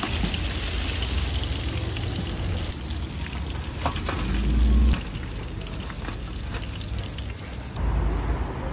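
Carp deep-frying in hot oil in a kazan, the oil bubbling and sizzling steadily, with a few light clicks from the wire skimmer and a low rumble about halfway through.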